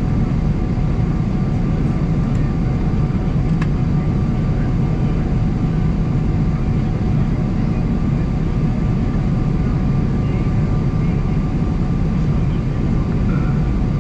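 Steady cabin noise of a Boeing 777-300ER airliner in flight: the even rush of engines and airflow, with faint steady hums above it.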